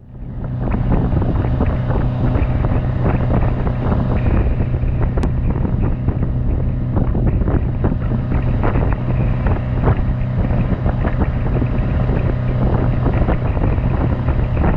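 Yamaha 150 outboard motor running steadily at cruising speed, about 24 mph, under wind buffeting the microphone and the rush of the churning wake. The sound fades in over the first second.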